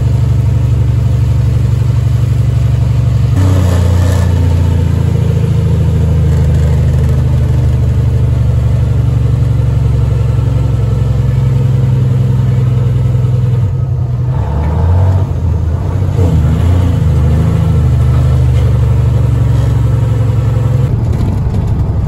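Semi truck's engine running under way, a steady drone heard from inside the cab, its pitch shifting a few seconds in and wavering again around the middle.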